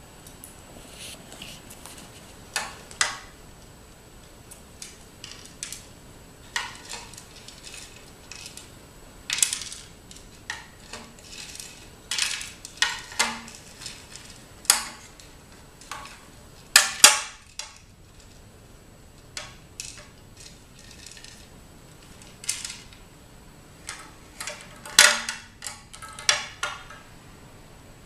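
Small hand tools clinking and tapping against a ceramic plate and a glass tabletop, irregular clatter with louder clusters just past the middle and near the end.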